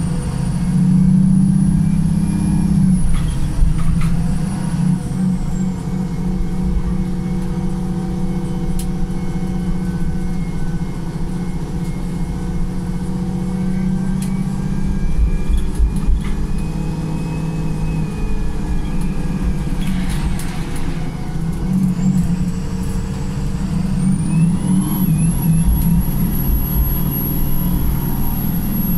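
Wright Pulsar single-deck bus engine running under way, in limp mode, with a steady low hum and high whines that glide up and down as it pulls. About two-thirds of the way through there is a short air hiss, and near the end a whine climbs sharply in pitch.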